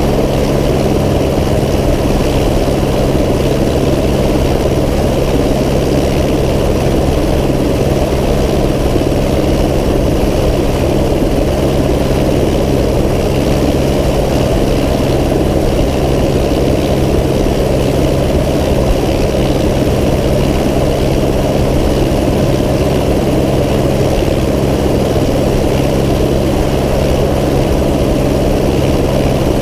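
Propeller aircraft's engine idling steadily on the ground, a constant drone with the propeller turning and no change in engine speed.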